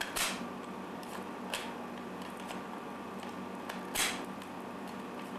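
Red plastic toy camera clicking as it is worked: two louder clicks about four seconds apart with a fainter one between, over a steady background hiss and hum.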